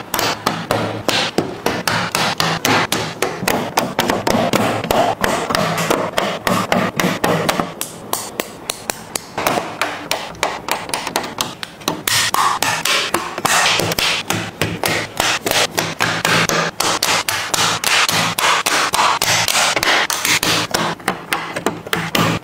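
Plastic LEGO bricks clicking and snapping together as they are pressed into place, a rapid, continuous run of sharp clicks and taps.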